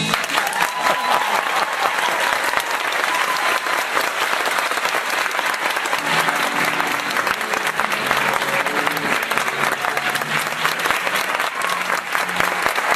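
Theatre audience applauding loudly, breaking out suddenly as a song ends. From about halfway through, low instrumental notes play underneath the clapping.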